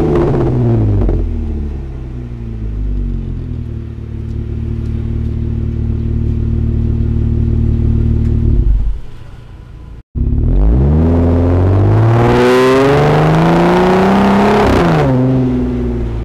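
Jeep Wrangler with an Injen dual stainless-steel exhaust: the revs drop back to a steady, deep idle, which fades out. After a sudden cut about ten seconds in, the engine accelerates hard, rising in pitch and getting louder, then eases off near the end.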